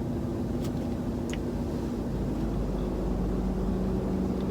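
Car engine idling steadily, heard from inside the cabin, a low hum whose pitch shifts slightly about halfway through, with a couple of faint clicks.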